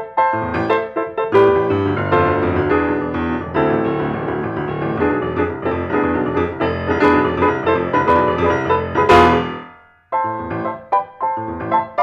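Grand piano played solo: a busy run of chords and notes builds to a loud struck chord about nine seconds in. The chord dies away to a brief silence, then short detached notes start up again.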